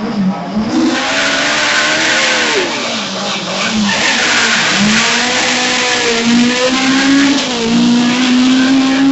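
Ford Escort Mk2 rally car engine revving hard through an asphalt hairpin, its pitch dropping and climbing several times, with tyre squeal from the slide during the first few seconds. Near the end the engine note climbs steadily under acceleration.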